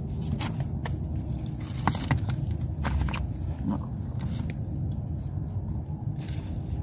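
Scattered light clicks and taps of a spoon and bowls being handled, over a steady low rumble.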